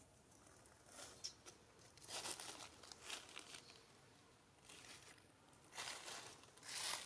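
Faint, irregular rustling and crinkling in short bursts, loudest about two seconds in and again near the end.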